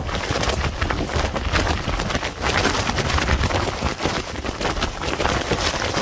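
Strong wind buffeting the microphone in driving rain: a deep, unsteady rumble under a constant hiss, with a dense crackle of small clicks.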